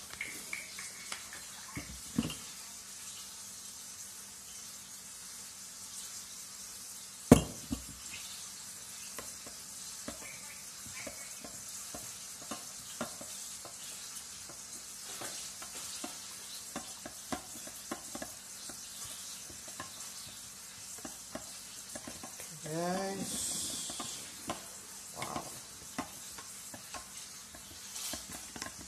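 Metal spoon stirring in a glass measuring cup of onion soup mix, clinking lightly against the glass many times, with one sharp knock about seven seconds in. A steady sizzle runs underneath, and a brief louder rush comes about 23 seconds in.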